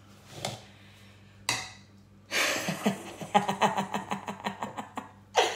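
A woman laughing: a run of quick breathy pulses lasting a couple of seconds, after a short sharp breath.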